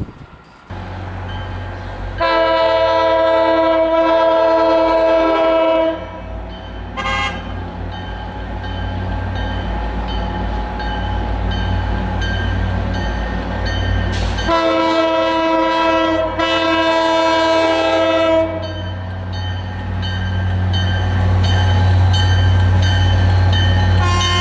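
MBTA commuter train's diesel locomotive sounding its multi-note horn in two long blasts of about four seconds each as it approaches, over the low rumble of its diesel engine, which grows louder toward the end.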